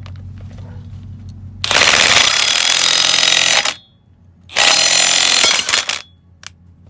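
Impact wrench hammering in two bursts, about two seconds then a second and a half, turning the screw of a U-joint press to push a worn U-joint out of a Ford F-150 half-shaft yoke.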